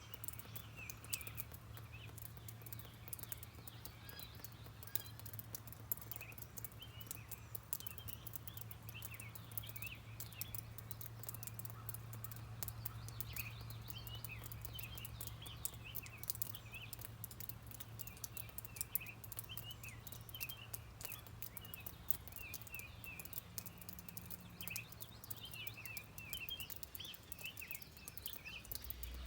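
Rain pattering in fine, dense drips, with birds chirping in quick short calls throughout and a steady low hum underneath.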